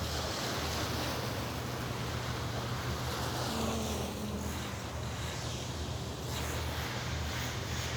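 Wind buffeting the microphone with a steady low rumble over the wash of sea surf.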